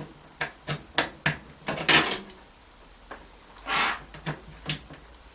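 Cable plugs being handled and pushed into the back of a desktop PC: a series of sharp clicks and knocks, with a couple of short scraping rustles.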